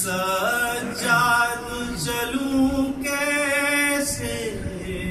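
A man singing a noha, a Shia lament, as a chant into a microphone, in long held notes that glide between pitches with short breaks for breath.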